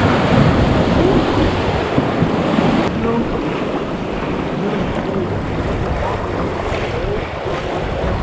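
River water rushing steadily, with wind buffeting the microphone.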